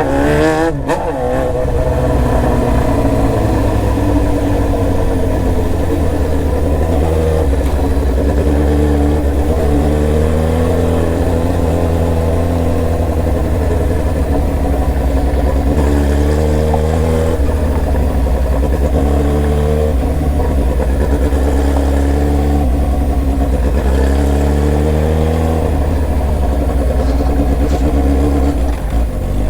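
Inline-four sport motorcycle engine running under way, its pitch rising and falling several times as it accelerates and eases off.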